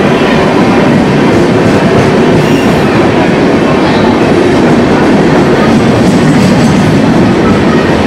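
Passenger train running on the rails: a loud, steady rumble of wheels and carriages.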